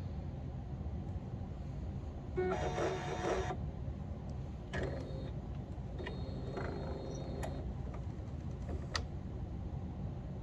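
Epson Artisan 1430 inkjet printer running a head-cleaning cycle: short bursts of motor whirring from the carriage and ink pump about two and a half, five and six seconds in, then a single click, over a steady low hum.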